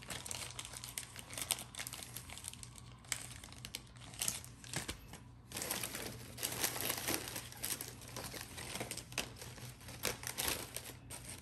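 Plastic trading-card pack wrappers crinkling as they are handled and moved about, in irregular crackles with a short lull about five seconds in.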